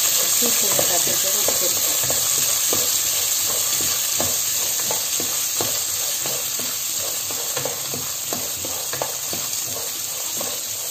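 Water-soaked green peas sizzling as they roast in a non-stick pan, with the light scrape and clatter of a wooden spatula stirring them. The sizzle slowly dies down.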